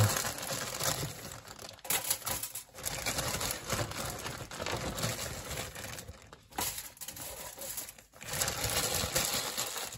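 Aluminium foil crinkling and rustling as French fries are laid out in a foil-lined air fryer basket, with a few light clicks and taps among it.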